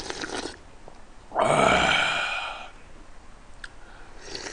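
A man slurping hot seafood jjamppong broth from a ladle, then letting out a loud satisfied sigh about a second and a half in, and slurping again near the end.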